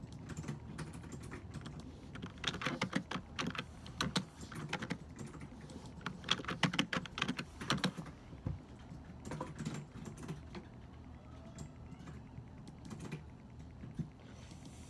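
Computer keyboard typing in irregular runs of keystrokes, busiest about two to four seconds in and again from six to eight seconds, over a steady low room hum.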